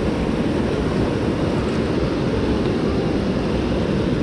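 Whitewater of a stream cascade rushing past as a steady, low, even noise.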